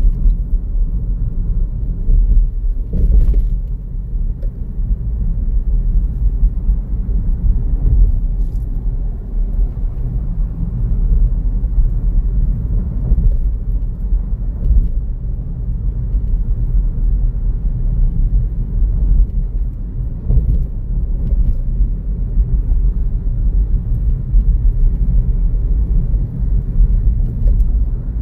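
Road noise inside a moving car: a steady low rumble of tyres and engine at driving speed, with a brief bump about three seconds in.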